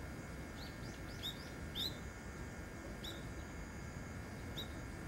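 Small birds chirping: short, quick chirps, singly or in little runs, every second or so over a steady low hiss.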